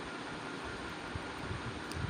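Chickpeas and tomato slices frying in oil in an aluminium pot, a steady sizzle during the browning stage before water goes in, with a faint click near the end.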